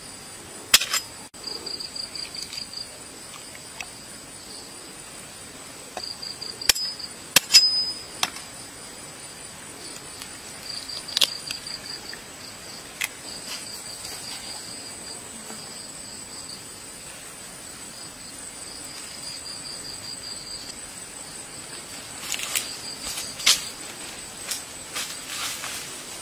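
Insects trilling steadily: a continuous high-pitched whine with a pulsing chirp that starts and stops in runs of a few seconds. A scattering of sharp clicks and knocks stands out above it, loudest around a second in, about seven seconds in and near the end.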